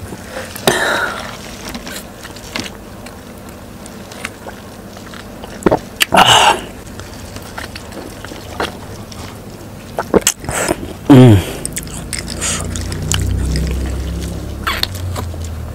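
Iced watermelon juice sipped through a glass straw at close range: ice cubes clinking against the straw and the watermelon shell, with scattered clicks and a few louder slurps, the loudest about six and eleven seconds in.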